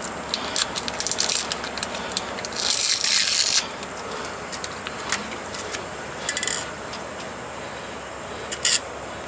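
Short metal clicks and rattles as a tyre plug insertion tool and a flat screwdriver are handled to seat the plug in the tool. There is a brief loud hiss about three seconds in, over a steady background noise.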